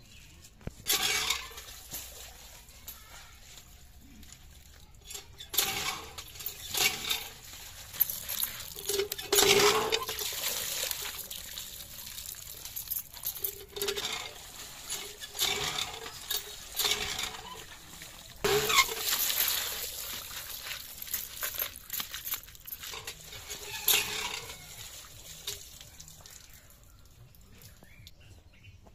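Water gushing and splashing in repeated pours of a second or two each, as cut rohu fish pieces in a plastic basket are rinsed at a hand pump.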